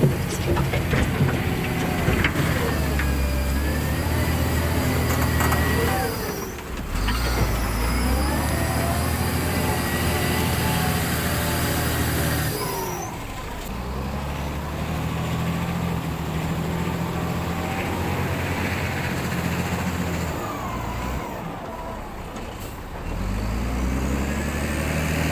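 Wheel loader's diesel engine running under load, its pitch rising and falling repeatedly as it digs into a soil pile and raises the bucket, with a few sharp clatters of the bucket against gravel at the start.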